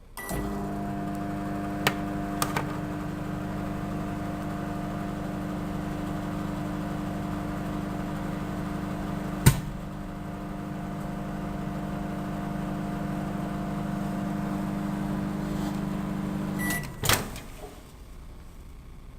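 Microwave oven starting with a short beep, then running with a steady hum and a few clicks, one sharp click about halfway through. Near the end it beeps and the hum stops, followed by a clunk.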